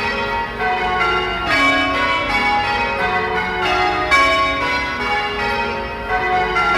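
Church bells ringing a continuous peal, one bell struck after another at different pitches, each ringing on under the next.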